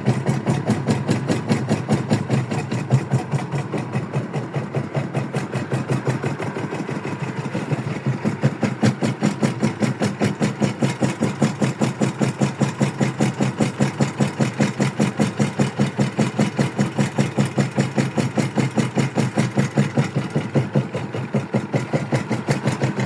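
A small boat's engine running steadily with an even, rapid beat.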